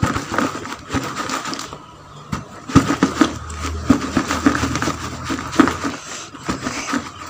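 Raw mango pieces and ground spice mix tumbling in a plastic bucket that is rocked and shaken by hand to mix the pickle: an irregular clatter of knocks, thuds and scrapes against the plastic.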